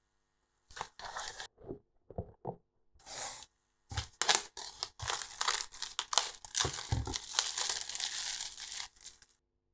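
Thin clear plastic bag crinkling and rustling in irregular bursts as hands pull it off a small FPV drone, with a couple of low thuds of the drone being handled.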